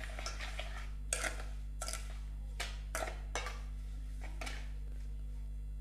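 Steel ladle stirring a thick mash of banana and sugar in a stainless steel bowl: irregular scrapes and clinks of metal on metal, about one or two a second, over a steady low hum.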